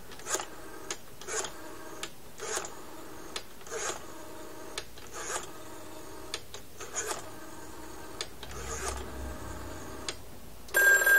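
Rotary dial of a USTel Model 5 telephone being turned and let go digit after digit, each return a quick run of dial-pulse clicks with a whirring buzz, showing the phone pulse-dialing. Near the end a telephone bell starts ringing loudly.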